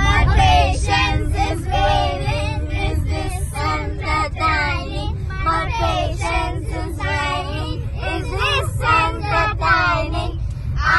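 A group of children singing together inside a bus, over the steady low rumble of the bus.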